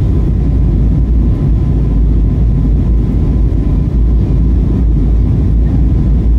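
Steady cabin roar of an easyJet Airbus A320-family jet in flight after takeoff: engine and airflow noise, heavy in the low end, with a faint steady whine above it.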